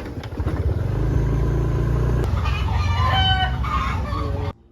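A rooster crowing over a steady low engine rumble; the sound cuts off suddenly near the end.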